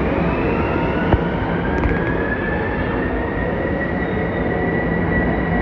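Long Island Rail Road M9 electric multiple-unit train moving past, a steady rumble of wheels on rail under a traction-motor whine that rises in pitch and then holds steady as the train picks up speed. One short click about a second in.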